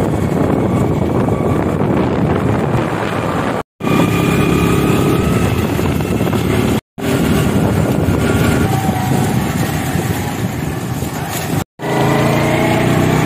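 Small motorcycle engine running while riding, with wind rushing on the microphone; the engine note shifts up and down in pitch. The sound cuts out briefly three times.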